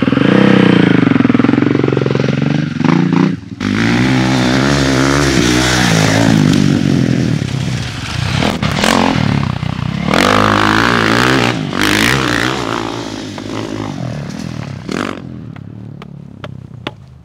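Motocross dirt bike engine revving up and down as it rides a section of track, fading away over the last few seconds.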